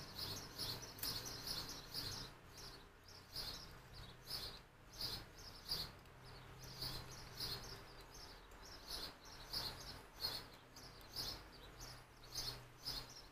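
Faint crunching of a crisp Ritz cracker sandwich being bitten and chewed, with small birds chirping over and over in the background, about two chirps a second.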